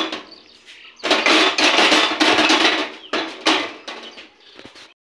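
Dense clattering and rattling as ingredients go into an aluminium pressure cooker of hot ghee on a gas stove, cutting off abruptly near the end.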